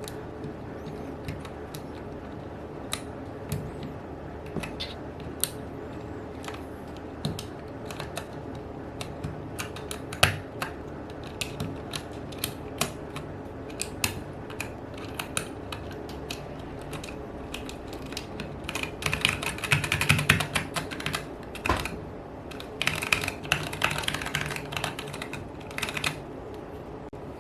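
Mechanical key switches clicking under typing: scattered single keystrokes at first, then two fast runs of rapid typing in the second half.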